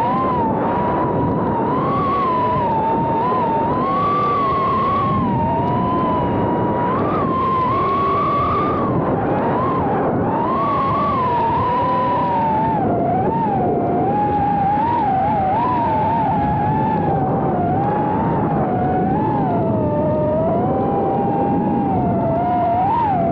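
RC car's motor and geartrain whining at close range, the pitch rising and falling continuously as it accelerates and brakes around the track, over a steady rumble of tyres and chassis on the dirt surface.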